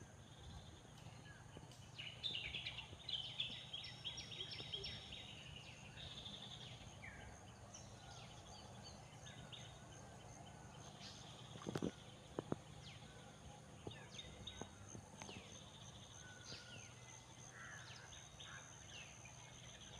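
Faint chorus of wild birds calling and chirping, busiest a few seconds in, over a steady low rumble and a thin steady high tone. A couple of sharp clicks about two-thirds of the way through are the loudest sounds.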